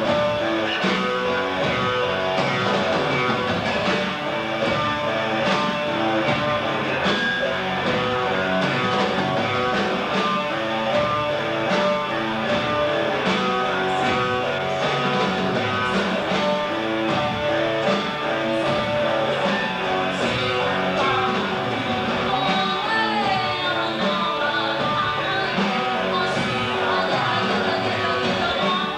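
Rock band playing live: electric guitar and drum kit with a steady beat.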